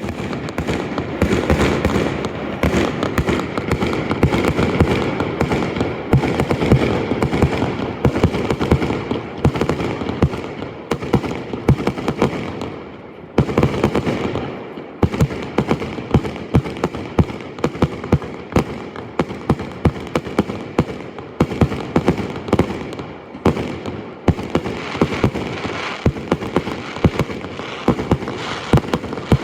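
Aerial fireworks bursting in a rapid, dense barrage of bangs and crackles, easing briefly about thirteen seconds in, then picking up again.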